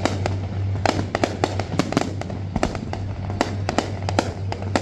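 Fireworks display: aerial rockets and shells going off overhead in a rapid, irregular string of bangs and crackles. A steady low hum runs underneath.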